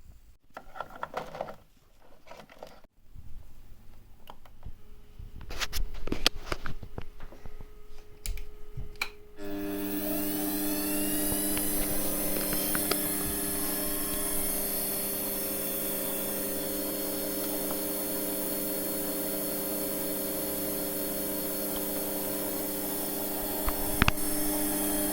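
Clicks and handling noises of small parts being worked, then a small electric motor starts about nine seconds in, spins up with a rising whine and runs steadily with a high hiss until it stops near the end.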